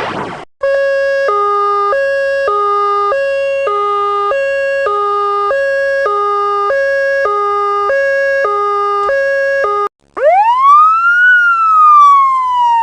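Two-tone emergency siren sound effect alternating between a high and a low note about every 0.6 seconds, which cuts off near ten seconds in. A wailing siren then takes over, sweeping quickly up in pitch and gliding slowly back down.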